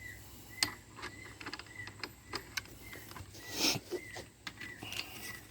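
Small backyard birds chirping faintly in short repeated notes, with scattered light clicks and taps throughout.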